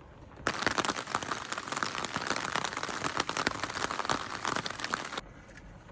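Rain falling hard on a surface: a dense crackle of drops that starts suddenly about half a second in and cuts off sharply just after five seconds.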